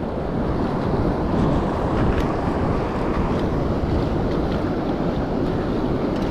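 Wind rumbling on the microphone over the steady wash of breaking ocean surf.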